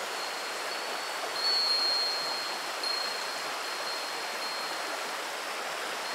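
Shallow river running over a pebble bed, a steady babbling rush. Over it a wind chime rings a single high tone, loudest about a second and a half in and fading, then sounds again near three seconds.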